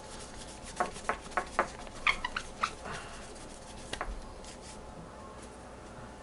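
Short squeaks of a cloth rubbed over a smartphone's glass screen, about seven quick strokes in a row, some with a high squeal, while fingerprints are wiped off. A single click follows about four seconds in.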